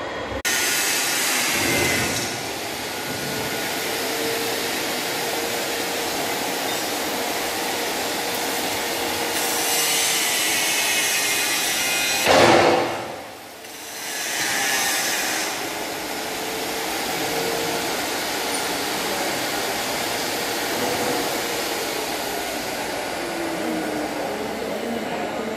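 Steady loud machinery noise of a metal fabrication workshop, with a brief louder burst about twelve seconds in and a short dip after it.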